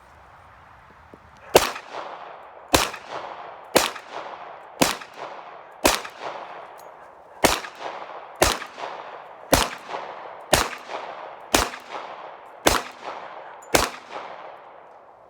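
Glock 21 .45 ACP pistol fired twelve times at a steady pace of about one shot a second, with a slightly longer pause after the fifth shot. Each shot trails off in a short echo.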